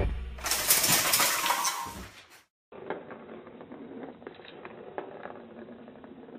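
A loud clatter lasting about two seconds as a cat leaps at stockings hanging on a metal fireplace screen. After a brief silence, faint scattered clicks of a plastic ball rolling in a ball-track cat toy as a cat paws at it.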